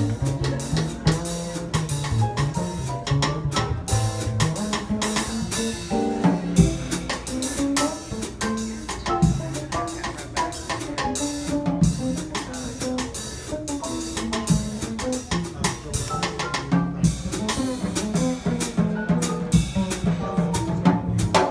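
Live jazz trio playing: drum kit struck with sticks and prominent in the mix, over a plucked upright bass line and keyboard piano.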